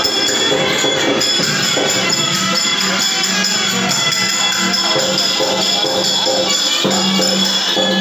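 Loud live music from a drama troupe's band, with jingling percussion over steady held tones.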